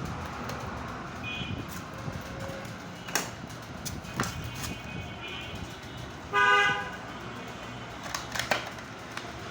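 Steady traffic background with a short vehicle horn toot about two-thirds of the way through, plus a few sharp clicks and fainter brief tones.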